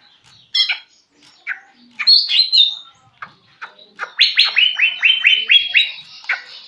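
Caged male cucak ijo (green leafbird) singing: a few scattered short calls, then from about four seconds in a fast run of about ten downslurred notes, roughly five a second. This is a young bird still learning its song.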